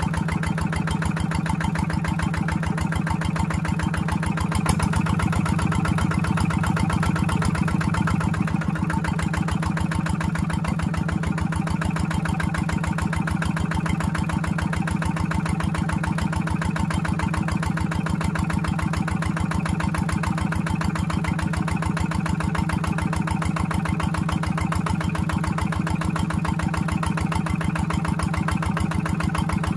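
Kubota diesel engine running steadily, driving a water pump, with an even firing beat throughout; it is a little louder for a few seconds about five seconds in.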